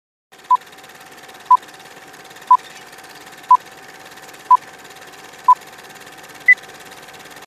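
Film-leader countdown sound effect: six short beeps one second apart at one pitch, then a single higher beep near the end, over a steady faint hiss with a thin steady tone.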